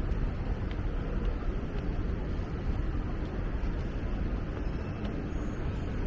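Steady low rumble of outdoor city street ambience, with no single sound standing out.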